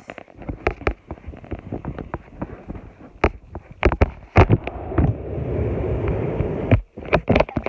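Handling noise as fidget toys are moved about and put into a storage bin: a string of sharp knocks and clatters, and a steady rubbing rumble for about two seconds in the second half that stops abruptly.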